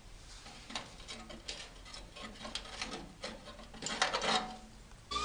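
Sheet metal being handled and worked by hand: irregular scraping and light clicks, loudest about four seconds in.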